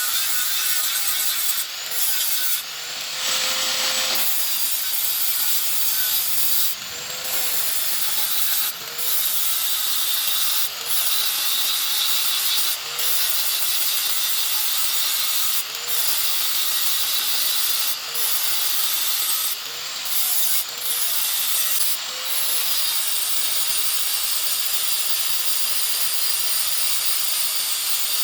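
A handheld power abrasive tool grinding or sanding a stainless steel pipe joint: a steady, loud, hissing grind, lifted off the metal briefly every second or two, with the motor's pitch rising a little each time.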